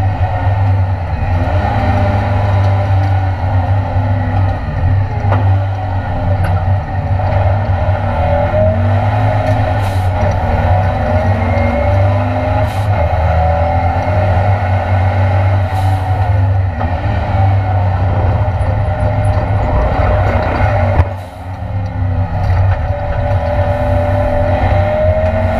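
Ford Escort Mk2 race car's Cosworth engine running hard on track, heard from inside the stripped cabin, its note rising and falling with the throttle. About 21 seconds in the engine sound drops sharply, then climbs again.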